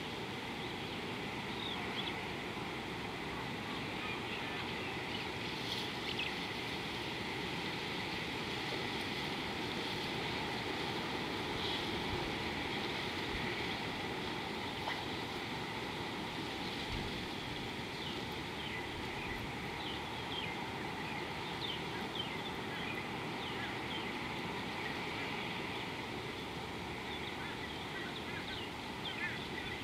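Steady outdoor background noise with scattered short, high bird chirps, coming more often in the second half.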